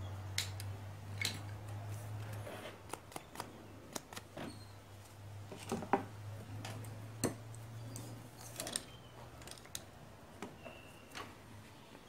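Scattered light clicks and ticks of hands handling a circuit board and a thin jumper wire, over a low steady hum that fades out about two-thirds of the way through.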